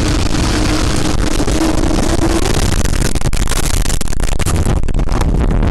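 Loud, steady rushing noise spread over the whole range, with a held low tone that fades out about two seconds in and irregular crackling in the second half.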